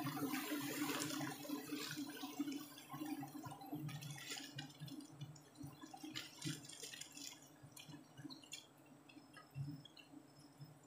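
Wild giant honeybee (Apis dorsata) honeycomb being cut and pulled into a plastic bag: wet, squishy crackling of the comb over a low steady hum, growing fainter toward the end.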